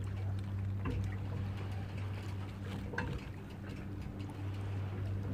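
Water sloshing against the breakwater rocks under a steady low hum, with two short clicks about a second and three seconds in.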